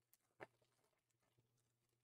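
Near silence, with one short, faint crackle about half a second in and a few softer ticks as a foil trading card pack is torn open and handled.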